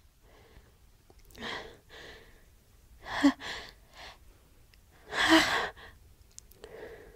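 A woman in an allergy sneezing fit: a gasping intake of breath, then two loud sneezes about three and five seconds in, with breathy sighs between.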